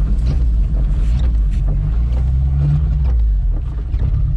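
Dacia 1310's engine running under load as the car drives over a rough dirt track, heard from inside the cabin, with short knocks and rattles from the body over the bumps. The engine note rises briefly a little past halfway, then dips for a moment before picking up again.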